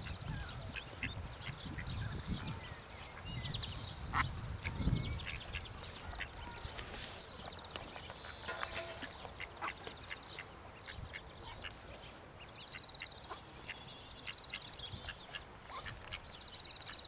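Mallard ducklings peeping: many short, high-pitched calls, some in quick trilled runs, scattered throughout.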